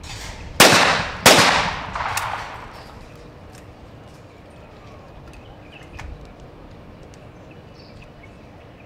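Shotgun fired twice in quick succession, about two-thirds of a second apart, at a pair of skeet clay targets. Each shot is a sharp bang with a trailing echo, and a fainter bang follows about a second later.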